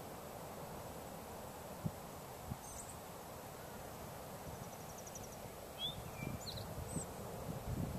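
Outdoor ambience: a steady low rush of wind with a few soft bumps of wind on the microphone, and faint high chirps plus a short rapid trill about halfway through. The low wind rumble grows near the end.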